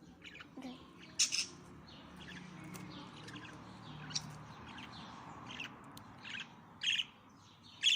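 Pet lovebirds chirping: short, high-pitched calls coming every second or so, with the loudest ones about a second in and near the end.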